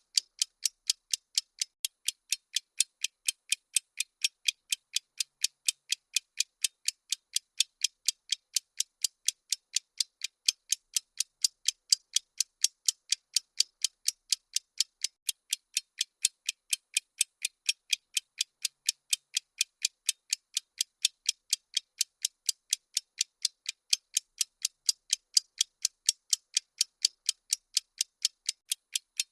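Steady, even ticking of a countdown-timer clock tick sound effect: sharp, crisp ticks at about three a second.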